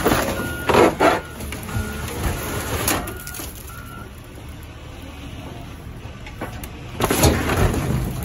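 Heavy loader running at a steady rumble while it sets a scrap car onto a stack of crushed cars, with loud metal clanks and scrapes of the car body near the start and again about seven seconds in. A short beep repeats in the first four seconds.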